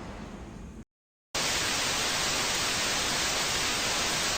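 Steady white-noise static hiss, like an untuned TV. It starts suddenly after half a second of dead silence, which follows a fading rush of noise.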